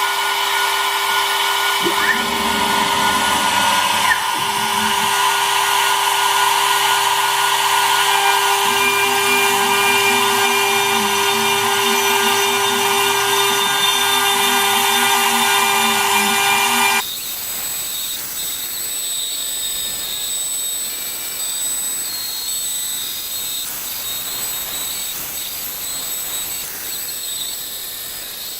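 CNC router's 24,000 RPM spindle running at a steady high pitch, with the axis stepper motors humming in notes that shift up and down as the machine moves through the carving. About two-thirds of the way through, the spindle tone and motor notes cut off suddenly, leaving a quieter high steady whine and hiss.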